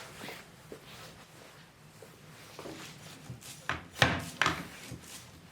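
Quiet rubbing and handling sounds, then three short knocks close together about two-thirds of the way through.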